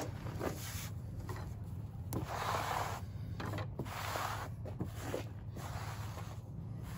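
Hands brushing and scraping wood shavings and bark debris across a tabletop, with a few light clicks and knocks; the longest, loudest scrape comes about two seconds in.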